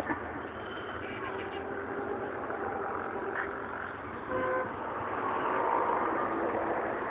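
Road traffic noise with a vehicle horn sounding briefly, once, about four seconds in.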